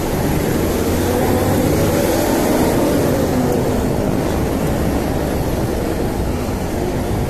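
Bus engine droning as the bus passes close alongside and pulls ahead, over steady road noise.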